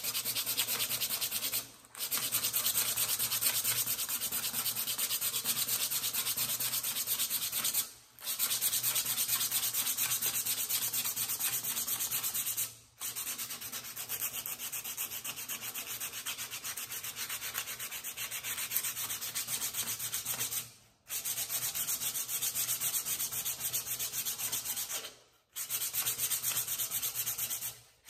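Coarse 36-grit sandpaper rubbed by hand in quick strokes along a wooden hammer handle, stripping its old shellac finish. The rasping runs in long stretches broken by five brief pauses.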